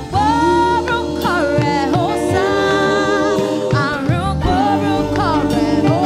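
Live gospel singing: a woman's lead voice into a microphone, wavering on held notes, over backing voices and sustained low notes.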